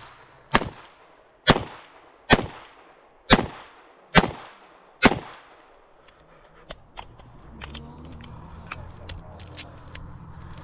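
Revolver firing six shots about a second apart, each with a short echo. After them come light clicks and rattles.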